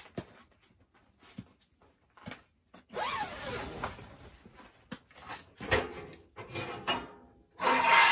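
Firewood being loaded into a steel barrel wood stove: wooden logs knocking against the metal, with scraping and clunks of the stove's steel parts. The longest scrape comes about three seconds in, and the loudest noise comes just before the end.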